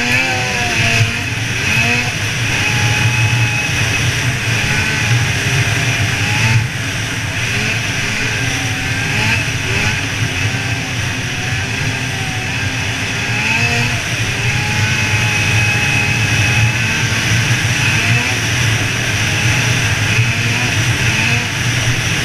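Snowmobile engine running at speed, its pitch wavering up and down with the throttle, over a steady rushing noise.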